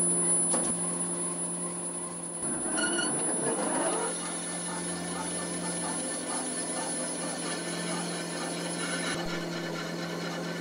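Electric motor of a clay-processing machine running with a steady hum. It gets rougher and louder for a stretch between about two and a half and four seconds in.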